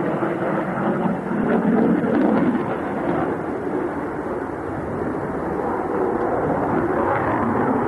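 Jet noise from a twin-engine, twin-tailed fighter flying aerobatics overhead: a steady, noisy rumble that swells briefly about two seconds in.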